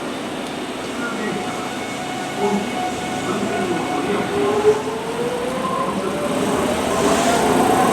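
Electric train's traction motors whining, the pitch rising steadily from about five seconds in and getting louder as the train accelerates, over a steady rail rumble. There is a single brief knock near the middle.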